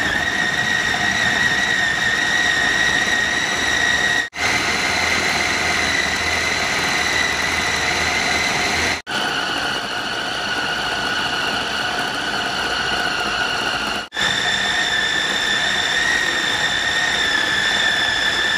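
Electric food processor running at speed, its chopping blade grinding raw pork chunks into a fine paste. The motor gives a steady high whine, broken by three brief gaps, with its pitch shifting slightly after each.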